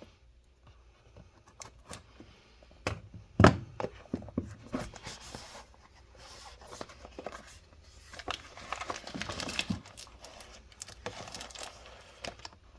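Packaging being handled and opened by hand: scattered clicks and knocks, the loudest about three and a half seconds in, then a stretch of crinkling and tearing of wrapping.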